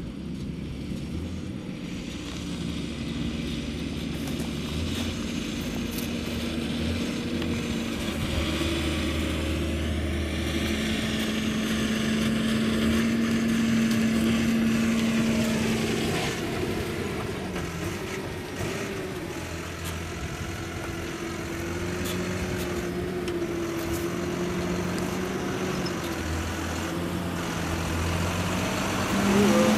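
John Deere 6210R tractor's six-cylinder diesel engine running while it pulls a loaded silage wagon, the engine note dipping and picking up again about two-thirds of the way through. It gets steadily louder as the tractor comes closer, with a jump near the end.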